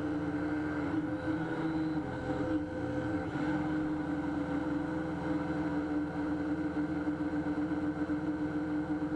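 Syma X8C quadcopter's motors and propellers whining steadily, heard up close from a camera mounted on the drone's own frame. The pitch shifts a little about three seconds in.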